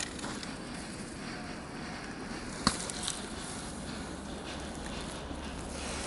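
Footsteps crunching through deep fresh snow, with one sharp click a little before halfway and a fainter one just after.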